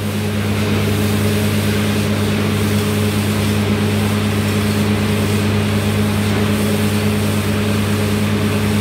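Truck-mounted borewell drilling rig running with a steady, loud engine drone, while water gushes and splashes out of the borehole around the drill pipe. The bore has struck water at such high pressure that the crew cannot carry on drilling.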